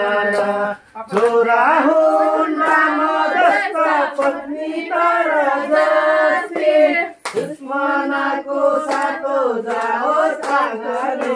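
A group of voices singing a folk song together in chorus, with hand clapping through it. The singing breaks off briefly about a second in.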